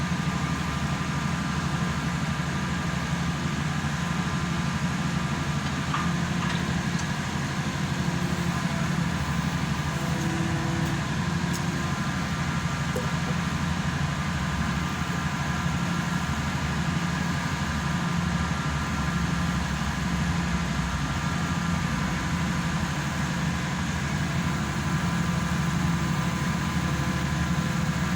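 Engine and hydraulic power unit of a hydraulic static pile driver running steadily, a constant low hum with steady higher tones over it.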